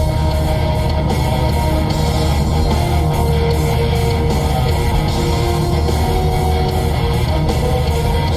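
Heavy metal music with electric guitar, loud and continuous.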